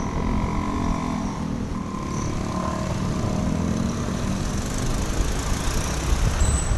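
Motorcycle engine running while riding through traffic, with a heavy rumble of wind and road noise on the microphone.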